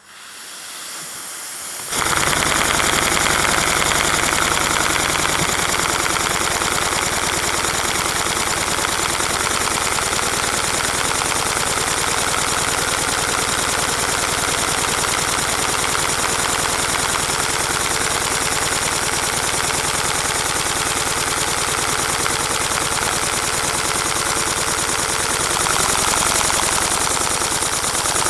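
Motor-driven LEGO boxer engine model running. Its plastic pistons and crank parts make a fast, steady clatter, which builds up over the first two seconds and then holds at speed.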